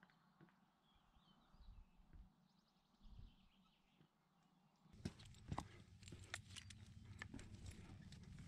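Quiet at first, then from about five seconds in, footsteps on a rocky limestone ledge: an uneven run of sharp ticks and scuffs of boots on stone.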